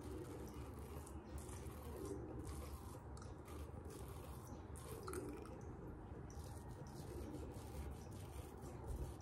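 Kamisori straight razor scraping through lathered stubble in short, repeated strokes: faint crisp rasps as the blade cuts the whiskers.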